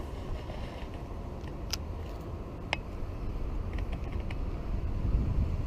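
Wind rumbling on the microphone, with a few sharp clicks about two and three seconds in and a short run of light ticks around four seconds.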